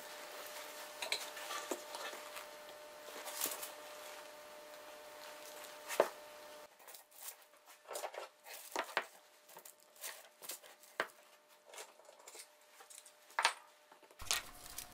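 Metal spring clamps clicking and knocking as they are opened and snapped shut one after another around a glued wooden disc stack. Scattered light clicks, the sharpest about six seconds in.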